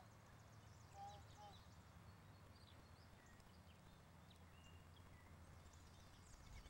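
Near silence: faint outdoor background with a steady low hum and a few faint, short high chirps.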